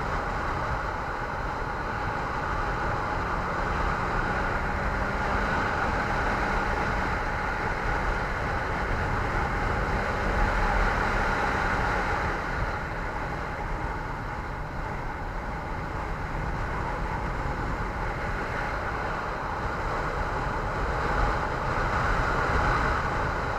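Steady wind rush and road noise from a moving ride, with a faint low hum through the first half.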